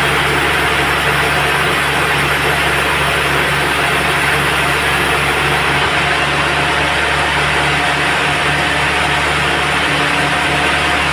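Sawmill machinery running steadily, a constant machine hum under a dense, even noise.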